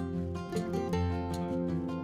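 Background music led by acoustic guitar, with a steady beat.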